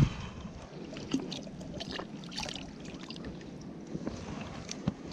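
Water splashing and dripping as a wels catfish is lifted out of the lake by its jaw, with scattered short knocks and rustles of handling, a sharp one right at the start.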